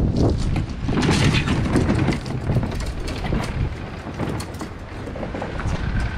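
Kayak trolley wheels rolling over concrete and grit, with the loaded fishing kayak and its rods and gear rattling on the trolley.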